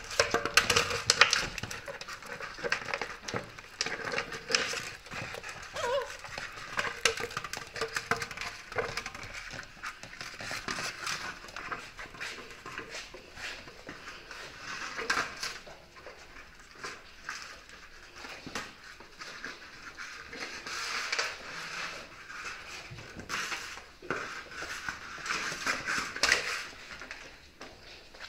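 Dalmatian puppies playing with an empty plastic water bottle on a wooden floor: the bottle crackles and clatters in uneven bouts as they bite and shove it, mixed with their claws clicking on the boards.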